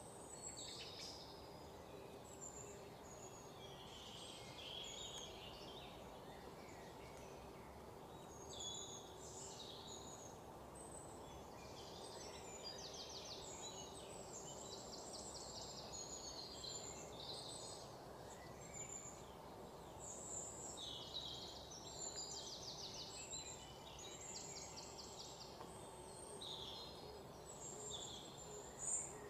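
Birds chirping faintly in the background, with short high calls and quick trills scattered throughout and one louder chirp near the end, over steady background noise.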